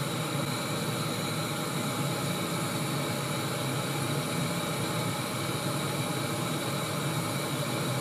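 Backpacking canister stove burner running on high under a stainless steel pot of water that is heating toward the boil, at about 81 °C: a steady, even hiss.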